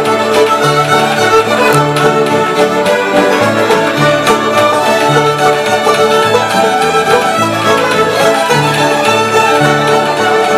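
A group of fiddles playing a fiddle tune together, bowed in unison, with low bass notes moving underneath.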